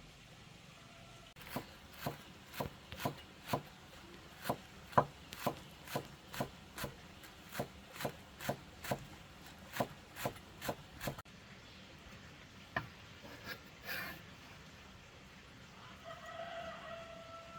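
Chopping on a wooden cutting board with a knife or cleaver: about twenty sharp, even strokes at roughly two a second, stopping about eleven seconds in. Near the end a faint, steady pitched tone sounds for about a second and a half.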